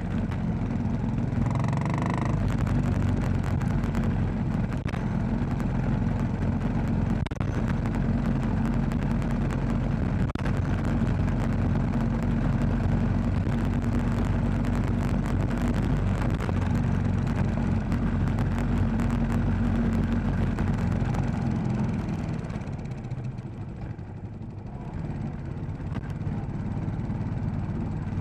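Royal Enfield Classic 500's single-cylinder engine running steadily while the motorcycle is ridden on a gravel road. About 22 s in the engine sound drops away as the throttle is eased, then picks back up a few seconds later. A brief higher tone sounds about two seconds in.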